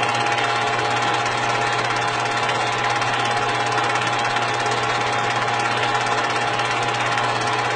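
A loud, steady buzzing drone with a fast rattle running through it, unchanging in pitch and level.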